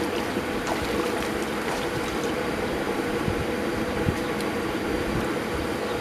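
Light splashing of water in an inflatable kiddie pool over a steady low background rumble.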